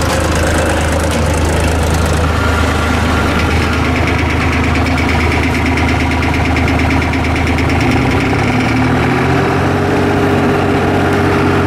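Skid steer loader's engine running steadily while it drives a hydraulic post hole auger. The engine note changes about eight seconds in.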